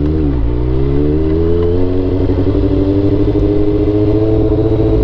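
Honda CB400 motorcycle engine under way. Its pitch dips briefly just after the start, then rises over about two seconds as it accelerates, and holds steady.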